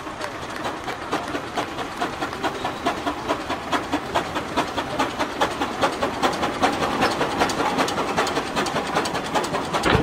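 1925 Breda steam road roller's steam engine running under way, its exhaust chuffing in a regular beat of about four a second over a steady hiss of steam, growing a little louder.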